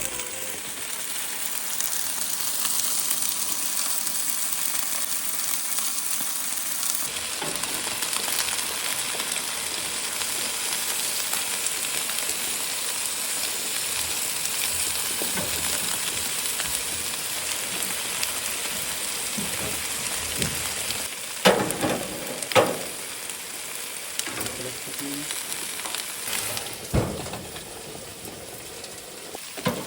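Food sizzling on a grill, a steady hiss, with a few sharp clatters about two-thirds of the way through and once more near the end.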